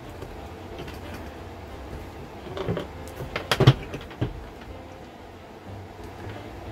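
Handling noise from beads on twine and a tree-shaped craft cutout: a cluster of light clicks and knocks in the middle, the loudest one just past halfway, over a low steady background.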